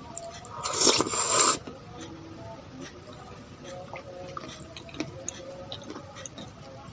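A loud rasping scrape lasting about a second, heard during close-miked eating of shaved-ice dessert. It is followed by faint small clicks.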